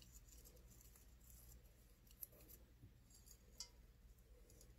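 Near silence: room tone with a few faint clicks and rustles as a small glass jar of dried herb is handled and tipped for a pinch.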